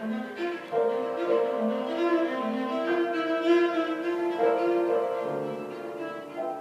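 Bowed string instruments, led by a violin, playing a melody in a string of held notes, with a lower part sounding beneath it.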